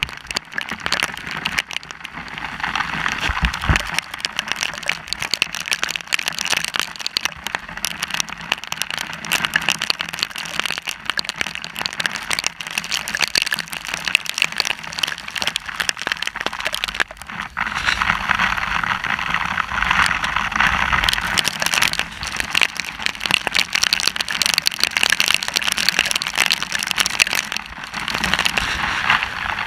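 Hailstorm with large hailstones and rain pelting down, a dense crackle of countless small impacts, with wind gusting against the microphone. It thins briefly a little past the middle, then comes on heavier again.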